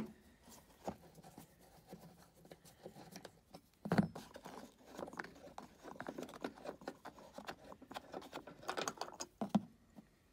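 Steel L-shaped star (Torx) key working a bolt out of a van's floor lashing point: irregular small metal clicks and scrapes, with a sharper knock about four seconds in and a burst of clicks and a knock near the end as the loosened bolt and key are handled.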